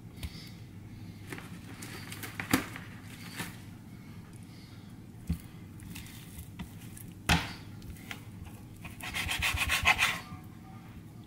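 Large kitchen knife cutting raw chicken on a plastic cutting board: a few sharp knocks of the blade on the board, then near the end a quick run of rasping sawing strokes as the knife works through skin and joint.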